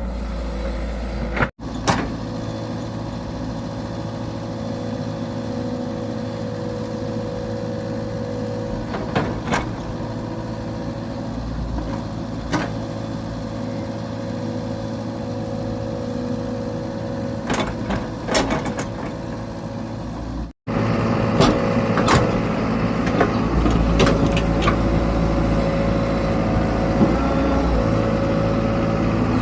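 Excavator engine running steadily with a constant whine, and several sharp knocks. The sound drops out briefly twice, and is a little louder after the second break.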